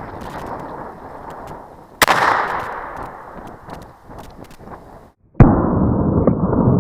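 A single shot from a .45-70 black-powder Sharps Model 1877 replica rifle about two seconds in, its report echoing and fading over a second or so. Near the end a second, much louder blast starts abruptly and carries on as a sustained rumble.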